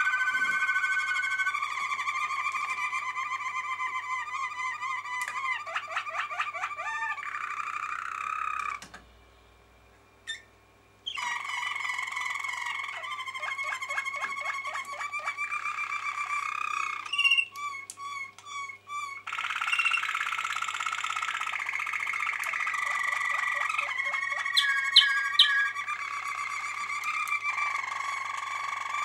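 Domestic canary singing a long, continuous song of rolling trills and chirps. The song stops for about two seconds roughly a third of the way in. A quick run of sharp, choppy notes comes around the middle, and a few bright high notes near the end.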